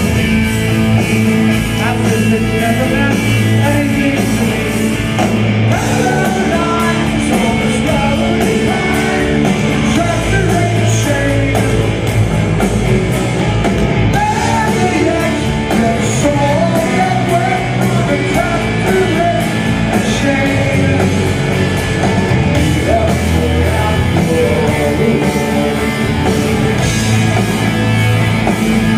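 Live rock band playing at full volume: electric guitars and a drum kit, with a man singing through the PA for much of it.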